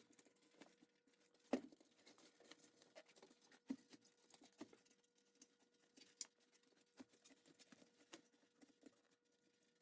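Near silence with faint scattered clicks and light taps, and two louder sharp knocks, about a second and a half in and near the four-second mark, over a faint steady hum.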